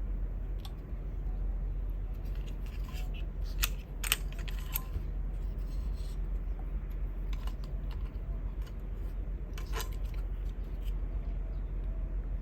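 Sharp clicks and snaps of a pocket radio being taken apart, a cluster of them a few seconds in and more near the end, over a steady low hum.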